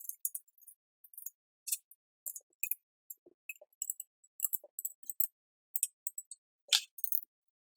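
Irregular light clicks and taps, about two or three a second, with silence between them, like small hard parts being handled during hand assembly work.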